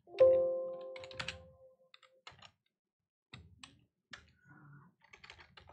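Typing on a computer keyboard: scattered keystroke clicks and short runs of taps as a terminal command is entered. Near the start a short steady tone sounds and fades out over about a second and a half.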